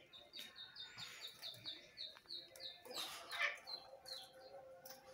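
Domestic canary singing a phrase of short repeated high notes, about four a second, that stops about four and a half seconds in. A brief rustling noise about three seconds in is the loudest sound.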